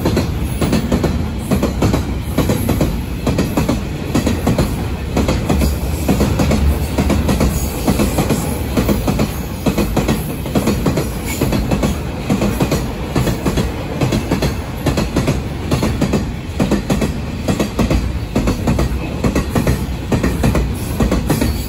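A railway train running past on the track, its wheels giving a steady, loud run of rapid knocks on the rails.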